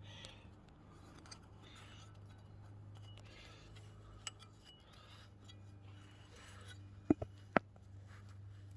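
Quiet background with a steady low hum and faint rustling, then two sharp clicks about seven seconds in; no engine is running yet.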